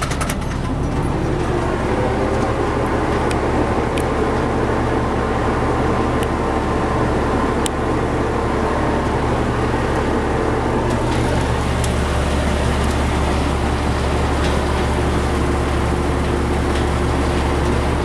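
A heavy engine running steadily with a constant low drone. It grows slightly louder about eleven seconds in.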